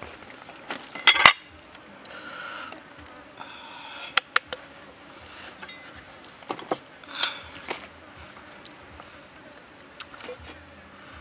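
Scattered knocks and clicks of a cleaver, knife and a whole raw chicken being handled and set down on a wooden chopping block, the loudest about a second in, with an insect buzzing briefly in between.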